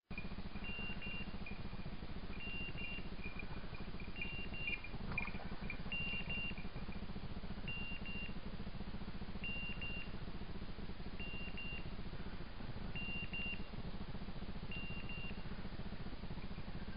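Electronic beeper collar on a hunting dog sounding a short double beep about every second and three-quarters, over a steady low hum.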